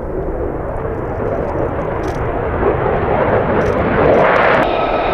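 F-35A Lightning II's jet engine rushing as the fighter flies low past, growing louder about four seconds in. Near the end a steady high whine takes over.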